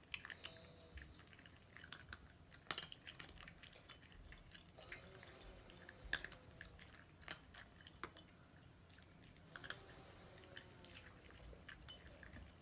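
Two cats chewing dry kibble from their bowls: faint, irregular crunches and clicks.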